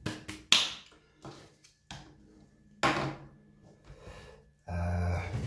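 Hands digging into a plastic tub of chunky bark potting mix: bark pieces rustling and clattering against the plastic. There are a few sudden knocks, and near the end a louder rustle that lasts under a second.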